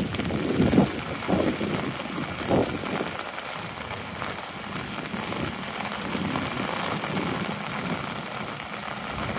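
Steady rain pattering on an umbrella overhead and on the wet pavement, with a few soft thuds in the first few seconds.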